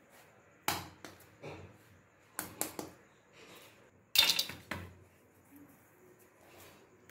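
A string of short knocks and taps of kitchen work on a stone counter slab: dough and a wooden rolling pin being set down and handled. The loudest knock comes about four seconds in, and it is quieter after that.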